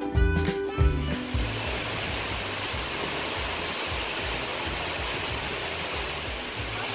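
Waterfall plunging into a pool, a steady rush of falling water. Background music stops about a second in.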